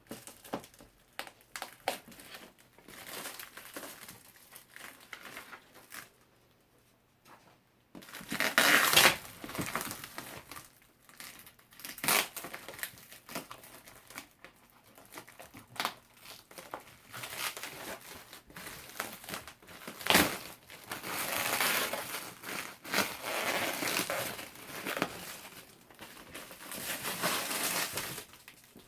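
Packaging being handled and unpacked: cardboard and plastic crinkling, rustling and scraping in irregular bursts, with a brief quiet gap about six seconds in.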